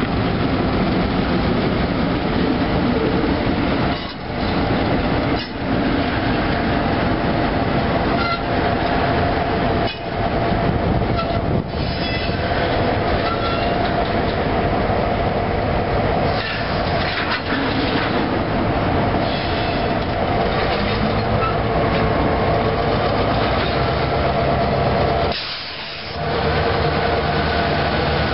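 Freight train of tank cars rolling past close by: a steady, loud rumble and clatter of steel wheels on the rails, with a clickety-clack over the rail joints. The sound dips briefly a few times, longest near the end.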